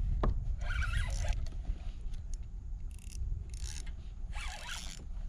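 A 2500-size spinning reel's drag buzzing in several short bursts as a big jack strips 10-pound braid off against it, with a low rumble underneath.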